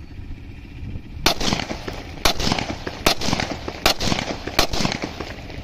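Locally made Scorpion-copy 30 bore (7.62×25 mm Tokarev) pistol fired in single shots: five sharp reports a little under a second apart, starting about a second in.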